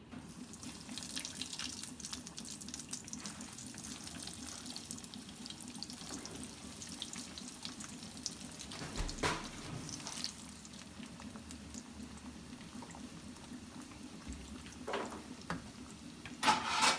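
Breaded chicken bread rolls deep-frying in hot oil in a nonstick kadai: a steady sizzling hiss full of small crackles and pops, starting as the first roll goes into the oil. A few sharper knocks and clinks come from the metal tongs turning the rolls.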